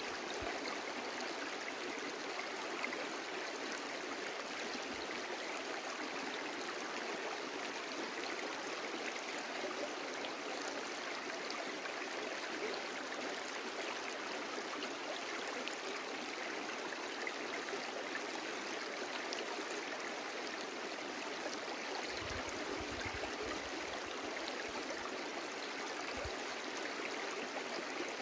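Brook water running and burbling over stones in a steady, even rush. A couple of faint low rumbles come in near the end.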